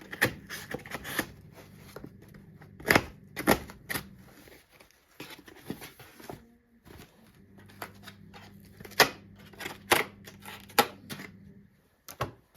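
Packaging being handled and opened: irregular crinkles, taps and clicks, a few of them sharp and loud, over a faint steady low hum.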